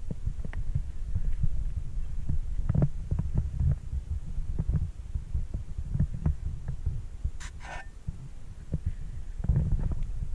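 Low, uneven rumbling and thumping on the camera's own microphone, typical of handling and wind buffeting as the camera is carried and panned. Two short scratchy rustles come about three-quarters of the way through.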